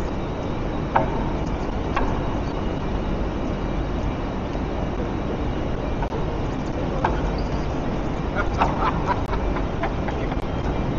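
Steady low rumble of a moving vehicle, with a few short clicks and rattles, the most of them about three-quarters of the way through.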